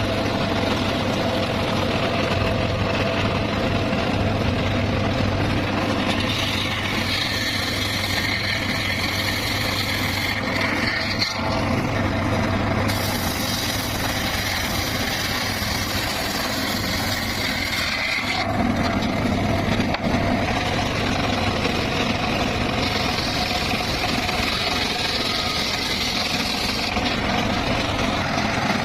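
Circular saw running steadily with a constant hum, a higher whine coming and going in stretches of a few seconds as the blade works through timber.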